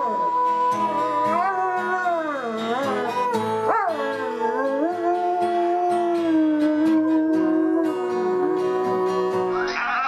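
Dog howling along with music: long, drawn-out howls that slide up and down in pitch, with a sharp swoop about four seconds in and a held note through the second half.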